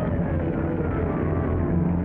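Film score music with steady held low notes.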